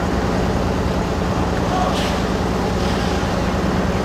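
Heavy dockside machinery engine running steadily at an even pitch, a constant low drone throughout.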